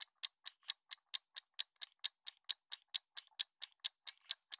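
Clock ticking sound effect: quick, even, high-pitched ticks, about four a second.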